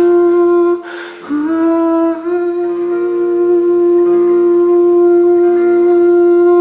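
Music: a single wordless melodic line of long held notes, with a short breath about a second in and a few steps in pitch.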